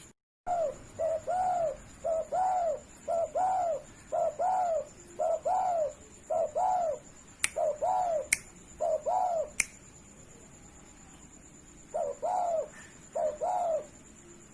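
Spotted dove cooing in a fast run of short-long paired coos for about nine seconds, then a few more after a short pause. Three sharp clicks fall in the middle of the run.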